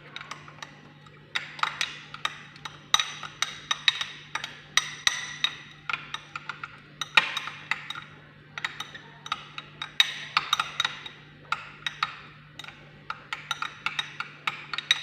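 A utensil beating a thick paste in a bowl, clicking quickly and irregularly against its sides in short runs.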